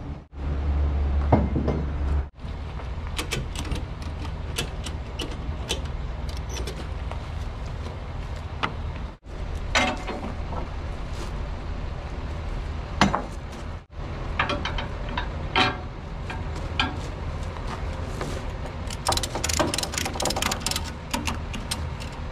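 Ratchet straps being thrown over a load and tightened: irregular metallic clicks and rattles of the ratchet buckles and hooks, over a steady low hum.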